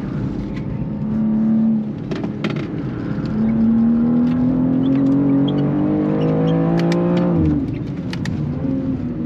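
Cabin sound of a G87 BMW M2's twin-turbo inline-six under load on track: the engine note dips about two seconds in, then rises steadily for about four seconds as the car accelerates, before falling away and quietening near the end.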